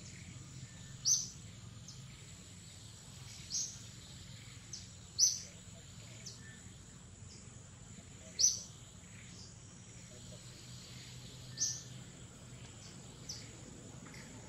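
Short high-pitched bird chirps, about five louder ones a few seconds apart with fainter ones between, over a steady high insect whine and a low hum.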